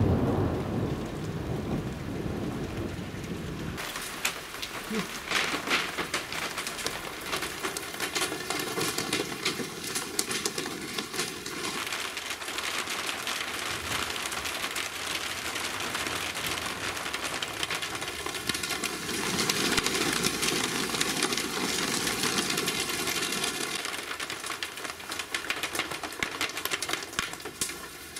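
Steady rain hiss. A low rumble of thunder runs under it for about the first four seconds and then stops abruptly.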